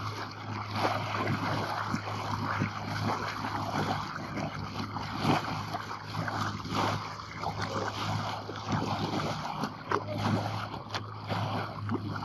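A small boat's engine running with a steady low drone, while water splashes and slaps against the moving hull.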